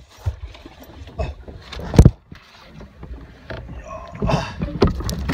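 Knocks and rubbing from a phone being handled, over a low wind rumble, with the loudest thump about two seconds in and a run of knocks near the end.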